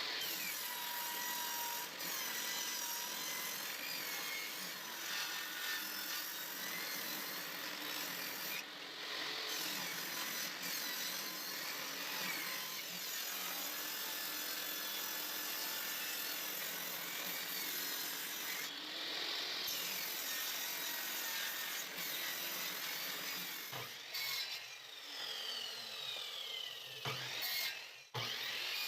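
Power tool sawing pallet wood, a steady high noise that runs on with brief breaks and shifts in pitch in the last few seconds.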